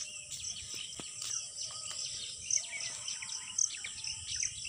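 Outdoor morning ambience: many small birds chirping in short, scattered calls over the steady high-pitched trill of crickets.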